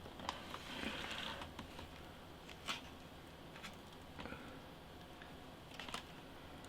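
Faint handling of product packaging: a brief rustle about a second in, then a few light, sharp clicks and taps spread through the rest.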